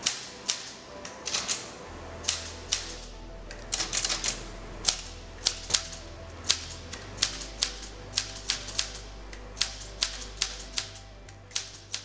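Typewriter being typed on: the keys and typebars strike the paper in sharp, uneven clacks, about two or three a second. Background music with a low held bass note plays underneath.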